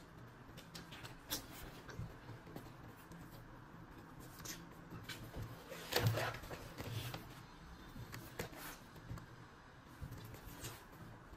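Faint rustling and light scattered taps of a ginger cat moving about on a desk and batting at a hand, with one louder brief sound about six seconds in.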